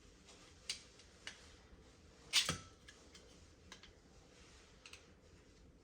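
Flat screwdriver working at the plastic ball-bearing guide piece on a dishwasher's upper-rack rail: a few sharp plastic clicks and ticks, the loudest about two and a half seconds in, as the piece is pried loose.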